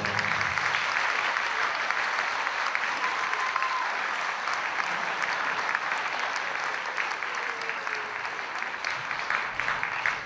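Theatre audience applauding, a dense steady clapping that eases slightly near the end.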